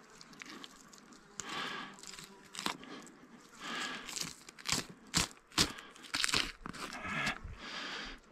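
Knife slicing and tearing flesh and membrane along the spine of a sika stag carcass as the backstrap is cut out, in irregular strokes with several sharp clicks and scrapes around the middle.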